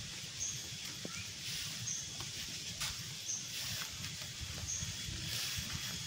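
Faint outdoor ambience: a short, high-pitched animal chirp repeating about every second and a half over a low rumble.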